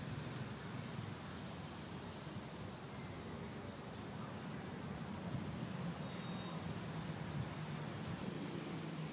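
Insect calling in a fast, even series of high pulses, about five a second, with a thin steady whine above it; both stop about eight seconds in. A brief high chirp comes about six and a half seconds in.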